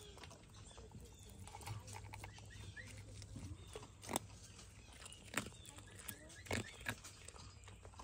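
A fox eating from a metal bowl, quiet chewing with four sharp crunches or clicks in the second half.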